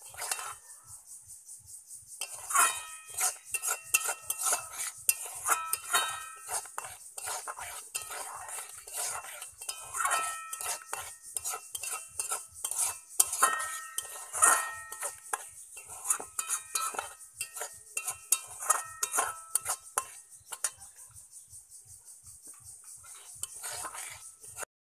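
A spatula scraping and knocking against a steel kadai while a thickening milk-and-egg mixture is stirred and cooked down. The pan rings briefly with each stroke in quick, irregular clusters, and the stirring goes quieter near the start and again near the end, over a steady high hiss.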